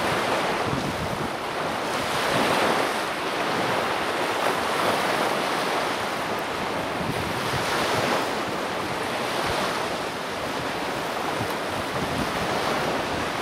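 Small waves breaking and washing up on a sandy Lake Michigan shore, the surf swelling and easing every few seconds, with wind rumbling on the microphone.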